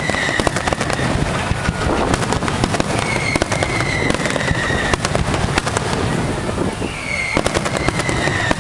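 Fireworks finale barrage: aerial shells bursting in quick, irregular succession with crackling bangs. Three times, a high whistle sounds over them for about a second and a half, drifting slightly down in pitch.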